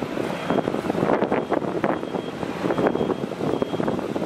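Jet engines of a twin rear-engined airliner climbing out just after takeoff: a loud, steady rushing noise with a ragged crackle.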